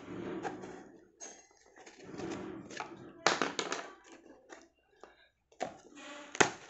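A blade slitting the packing tape on a cardboard shipping box, then hands prying the cardboard flaps open: scraping rustles broken by several sharp clicks.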